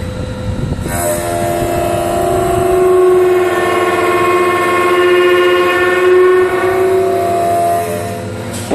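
High-speed CNC wood turning lathe cutting a rolling-pin blank on its first roughing pass. A loud, steady hum with several overtones starts about a second in and stops shortly before the end.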